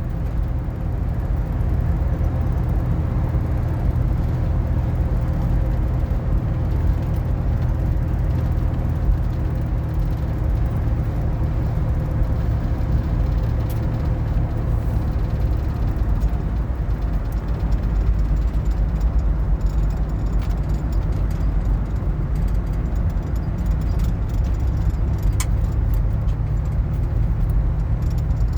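Steady road and engine noise of a van being driven, heard from inside the cabin: a constant low rumble.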